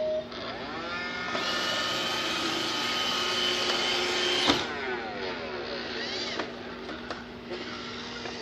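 Roomba 550 robot vacuum's motors spinning up with a rising whine about half a second in, then running steadily. After a click about four and a half seconds in they wind down with a falling whine, and a quieter motor sound goes on.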